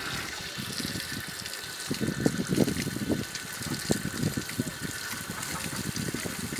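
Water gushing and splashing unevenly over a young bull's body and onto muddy ground as the animal is bathed.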